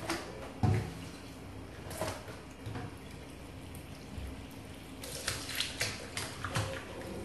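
Tap water running into a stainless steel sink over a pile of banana leaves while hands rinse and rub them, with a knock about a second in and a run of quick splashes and leaf rustles near the end.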